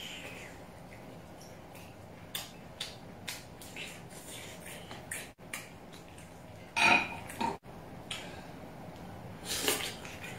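Clam and other shellfish shells clicking and clattering against a plate and each other as they are handled and pried open, with short scattered clicks and a louder clatter about seven seconds in and again near the end.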